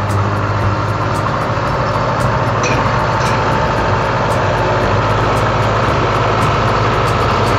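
Tractor engine running steadily with a low, even drone, and two faint short clicks near the middle.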